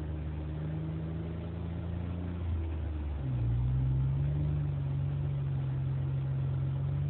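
Jeep Wrangler JK engine running under way, heard from inside the vehicle. About three seconds in the engine note breaks off briefly, then comes back lower and louder, its pitch climbing slightly as it pulls.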